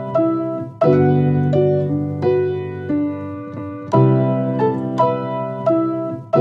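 Background instrumental music: a melody of piano notes over a low sustained chord, with a new chord struck about every three seconds.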